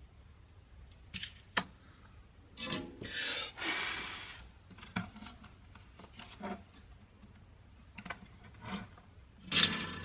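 Light clicks and scrapes of tools and a circuit board being handled while a new power socket is soldered in. There is a hiss lasting about a second and a half around three seconds in, and a louder clatter near the end.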